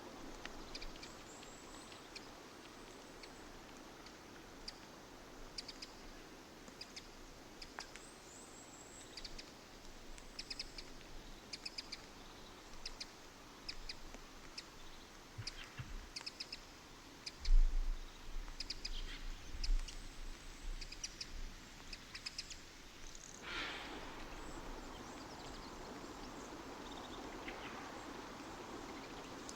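Small birds chirping and calling in short high notes throughout. A few low thumps come about two thirds of the way in and are the loudest sounds, and near the end a steady rushing noise sets in under the birdsong.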